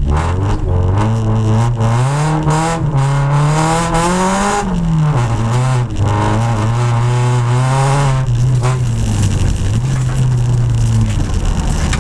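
Honda Civic EG6 rally car's four-cylinder engine, heard from inside the cabin, pulling hard. Its pitch climbs for about four seconds, then falls sharply, and it runs at a steadier lower pitch with brief dips before easing off near the end.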